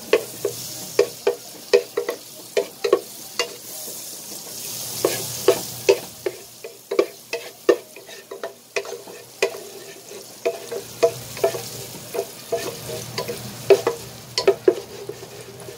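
Butter melting and sizzling in a saucepan while a wooden spatula stirs it, knocking against the pot in sharp, irregular taps about one to two a second.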